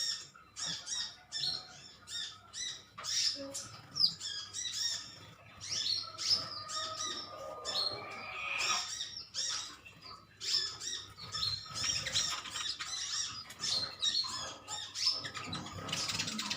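Several sunbirds chirping rapidly and continuously in high, sharp notes, calling against one another.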